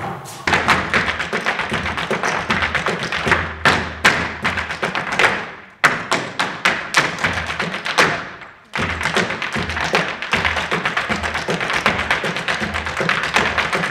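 Hard-shoe percussive step dancing: a fast, dense run of heel and toe taps and stamps over live music. The run dies away and starts up again abruptly twice, near six and near nine seconds in.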